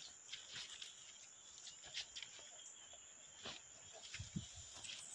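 Faint rustling and crackling of a bundle of leafy vassourinha (broomweed) stems being handled and bound into a broom, with a couple of soft knocks about four seconds in and a faint steady high tone behind.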